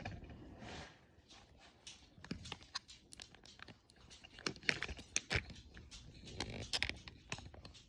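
Wet mop being worked across the floor: irregular swishes and scrapes, with scattered sharp clicks and knocks that are loudest about five seconds in.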